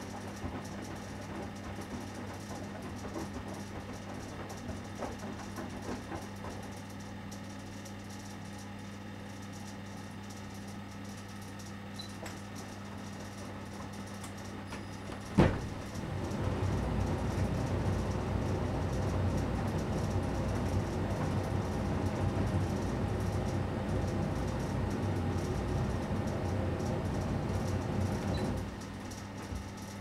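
Electrolux EW7H578S heat-pump tumble dryer starting its first cycle: a sharp click about halfway through, then the drum turns with a loud rumbling rattle for about twelve seconds and stops suddenly. This is the first start, when the drum's transport restraints dislodge, which the owner expects to be loud.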